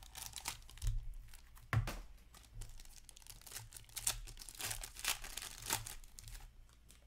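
Foil wrapper of a 2021-22 Upper Deck Black Diamond hockey card pack being torn open and crinkled by hand: a run of irregular crackles that dies away near the end.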